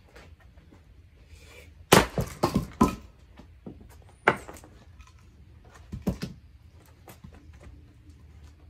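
Firewood being split and handled: a quick run of about five sharp wooden knocks and clatters about two seconds in, then single knocks near the middle and around six seconds.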